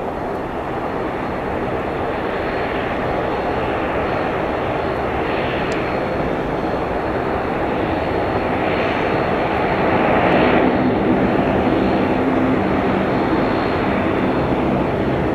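Boeing 737-400's twin CFM56-3 turbofan engines at takeoff power as the airliner climbs out: steady jet noise that slowly grows louder, peaking about ten seconds in.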